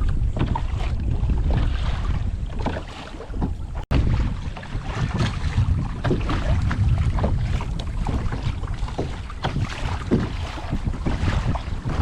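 Wind buffeting the microphone over water splashing around a kayak, with a brief dropout about four seconds in.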